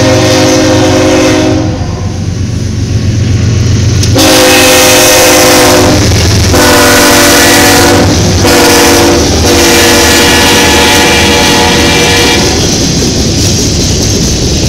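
Diesel freight locomotives' multi-note air horn sounding four blasts as the lead units pass: the first is already sounding at the start, the third is shorter, and the last is held longest. A steady low engine rumble runs underneath. After the horn stops near the end, only the rumble and rail noise of the passing container cars remain.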